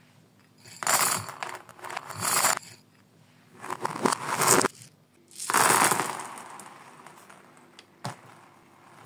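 Small plastic beads and bead toys clattering and scattering across a laminate floor in four bursts, the last one trailing off, followed by a faint single tick near the end.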